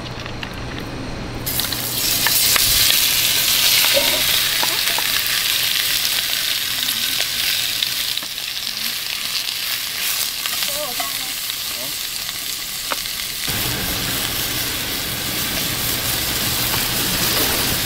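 Food sizzling in hot oil in a pan, a dense steady crackling hiss that starts suddenly about a second and a half in.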